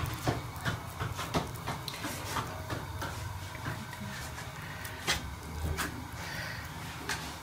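Irregular soft wet clicks and pats of oiled hands pressing and shaping minced chicken nugget mixture, over a low steady hum.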